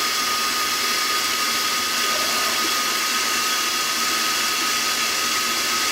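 Shower head spraying cold water in a steady hiss, with a thin steady tone over it.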